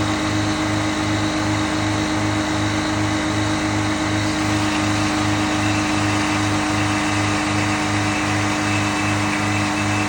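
Frick sawmill running under engine power, a steady loud mechanical drone with a low hum that pulses about three times a second.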